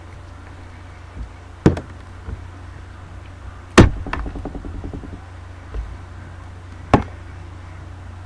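Hand knocking against the webcam and the wooden tabletop: a quick double knock, then a loud knock about four seconds in followed by a brief rattle of small clicks, and one more knock near the end.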